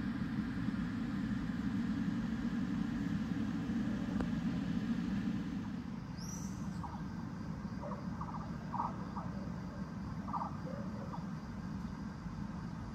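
Steady low rumble of a vehicle engine, a little quieter after about six seconds, with a few short chirps in the middle.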